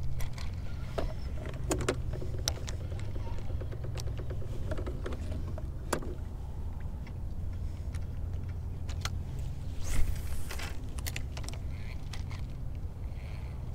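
Fishing reel and rod gear clicking and rattling in the hands, a scatter of small sharp clicks over a steady low hum, with a short rush of noise about ten seconds in.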